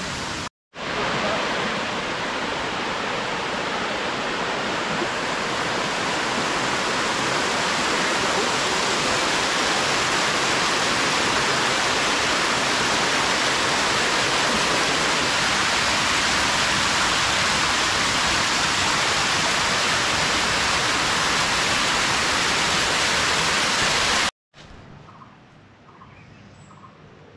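Water of a jungle waterfall cascade rushing down shallow rocky steps: a steady, loud rush. Near the end it cuts away to a much quieter forest with faint chirps.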